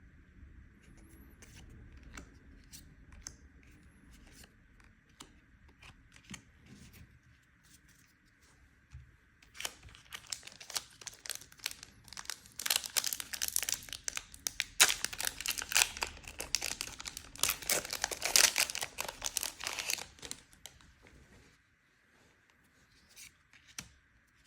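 Foil booster pack wrapper being torn open and crinkled. A few faint clicks and rustles come first, then about ten seconds of loud, dense crackling tearing and crinkling, which stops a few seconds before the end.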